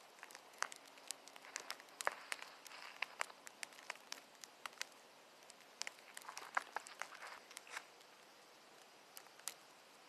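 Sleet or ice pellets ticking faintly on surfaces, sharp clicks at uneven spacing a few times a second, with a few soft crunchy patches.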